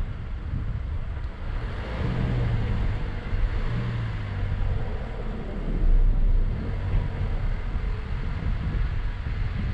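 Mazda CX-9 SUV driving over soft desert sand: a steady engine note under a continuous low rumble of tyres and wind, swelling briefly louder about six seconds in.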